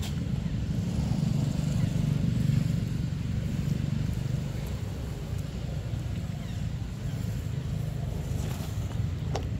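Steady low rumble of outdoor background noise, a little stronger in the first few seconds, with a couple of faint clicks near the end.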